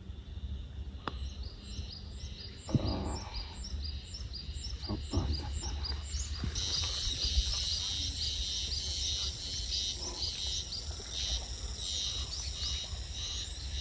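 Outdoor birdsong: short chirps repeated several times a second, joined about six and a half seconds in by a denser, louder chorus of chirping, over a low rumble of wind on the microphone.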